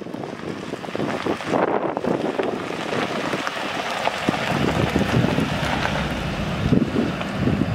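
Wind buffeting the microphone, a rushing noise with gusty low rumbles that grow stronger about halfway through.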